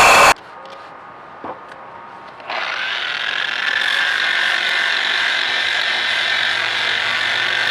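A loud steady blowing power tool cuts off just after the start; about two seconds later a handheld power tool motor starts and runs steadily with a high whine.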